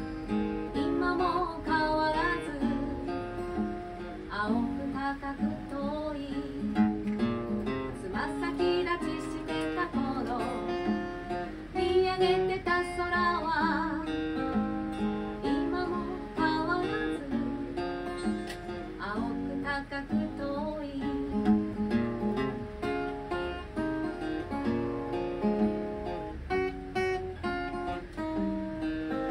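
Steel-string acoustic guitar strummed and picked in a steady song accompaniment. A woman's singing voice with vibrato comes in over it at intervals, mostly in the first two-thirds.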